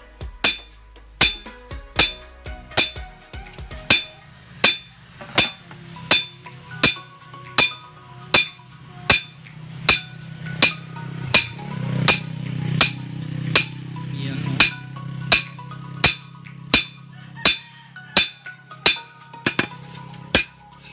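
Blacksmith's hand hammer striking hot steel on an anvil while forging a machete blade from chainsaw steel: a steady rhythm of blows a little over one a second, each with a bright metallic ring. A steady low hum joins about four seconds in.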